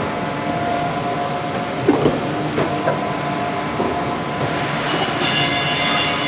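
Industrial tape-applying machine running, a steady mechanical hum and rattle. A few sharp knocks come about two seconds in, and a short high-pitched whine near the end.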